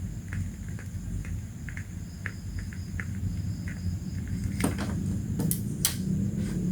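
A few sharp clicks and knocks, such as objects being handled, over a steady low hum and a faint high-pitched background whine with light ticking.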